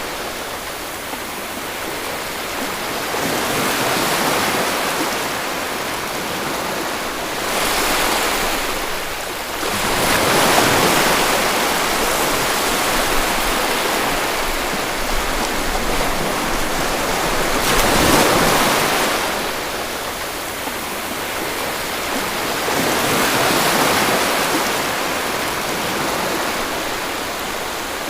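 Sea waves washing onto the shore, the rush of water swelling and easing every few seconds.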